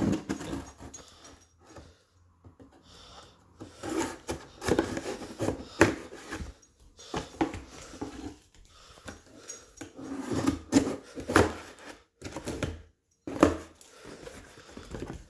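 A package being handled and opened by hand: irregular scraping, rubbing and knocking of the packaging.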